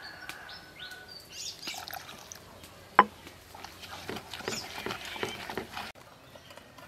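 Wooden pestle pounding a chili mixture in a clay mortar: wet thuds and knocks, with one sharp, loud knock about three seconds in and a run of quicker strokes after it.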